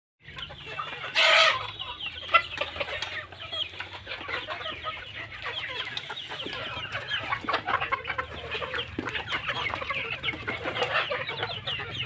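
A flock of laying hens clucking continuously as they crowd a steel bowl of food, with many short clicks of beaks pecking against the bowl. A brief loud burst cuts through about a second in.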